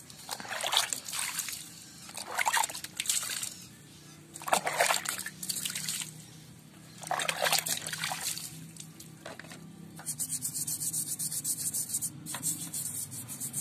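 Water splashed over a small air-cooled petrol engine block to rinse off a foaming cleaner, in a series of short splashes with trickling between, then a fast patter of small splatters near the end.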